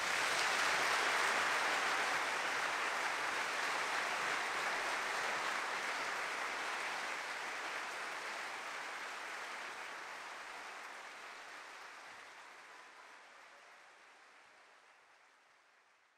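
Audience applauding, starting loud at once and fading slowly away to nothing near the end.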